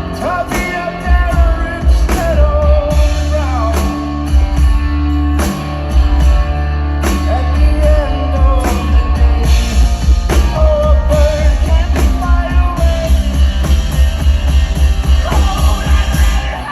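Live band playing an instrumental stretch of a rock song: drums and heavy bass under a wavering lead melody. The bass drops out near the end.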